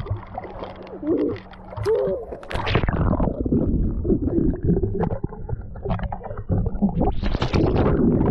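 Water splashing at the surface, then about two and a half seconds in the action camera goes under: muffled underwater rumbling and gurgling of churning water and air bubbles, with a brighter flurry of bubbles near the end.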